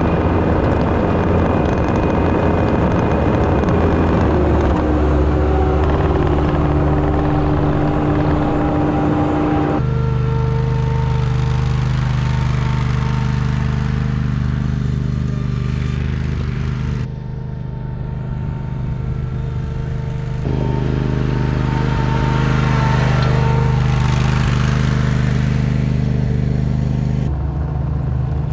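Engines running steadily across several shots. First a Bobcat T190 compact track loader's diesel engine works a soil conditioner over the infield dirt. Then a small riding tractor's engine pulls a field rake, and the sound changes suddenly at each cut.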